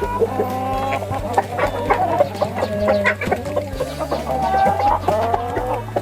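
A flock of chickens clucking, many short calls overlapping throughout.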